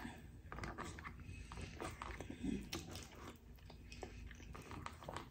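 Close-miked chewing with soft, irregular wet mouth clicks, and a few light clicks of a plastic fork picking food from a takeout tray.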